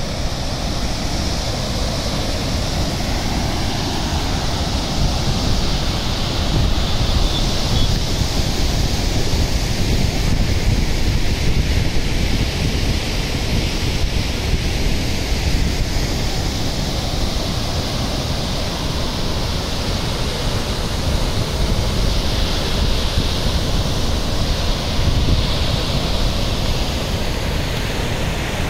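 Tapi River water rushing over a weir and churning into white water below it: a steady, loud rush, with wind buffeting the microphone.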